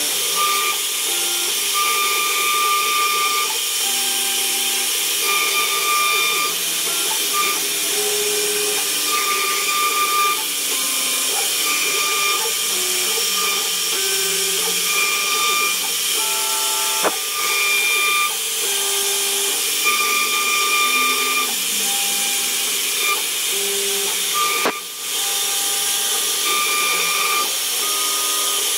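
CNC wood-carving router running while it cuts: a steady high hiss from the spindle and cutter, with short whining tones that keep jumping between pitches as the machine moves.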